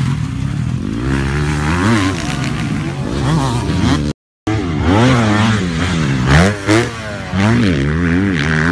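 Dirt bike engines revving up and down through the gears. A split-second silence about four seconds in, then another bike revving hard with quick rises and falls in pitch.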